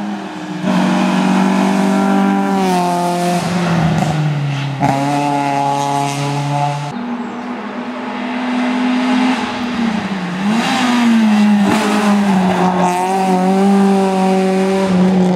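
Hill-climb racing car engines at high revs, pitch climbing and dropping repeatedly as each car accelerates, shifts and brakes on the course. About seven seconds in, the sound switches abruptly to a different car.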